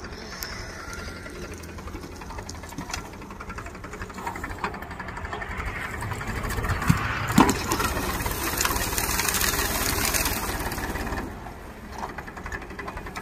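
Powertrac tractor's diesel engine running with a fast, even knock, getting louder through the middle as it works. There are a couple of sharp knocks about seven seconds in.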